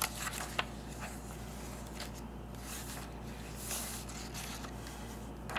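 Paper pages of a handmade journal being turned and handled: soft rustling and swishing, with a sharp tick about half a second in.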